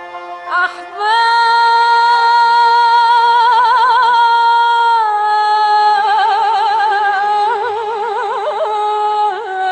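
Woman singing an Arabic song: from about a second in she holds a long high note with wide vibrato, steps down to a lower note about halfway through, then turns the line in ornamented, wavering runs.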